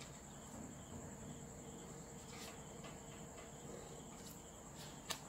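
Quiet room tone with a steady high-pitched tone throughout, and a few faint taps of a pen and plastic ruler on paper, the sharpest a small click near the end.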